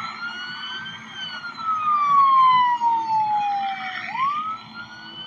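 Police car siren wailing: a quick rise, a slow fall over about three seconds, then a quick rise again near the end.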